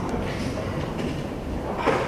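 Boots of a column of soldiers tramping across a wooden stage: a low, uneven rumble of footfalls, with a sharp knock near the end.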